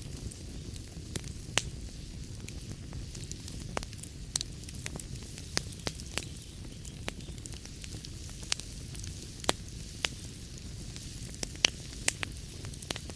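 Wood fire burning in a fireplace: a steady low rumble of the flames with irregular sharp crackles and pops from the burning logs, a dozen or so louder pops scattered throughout.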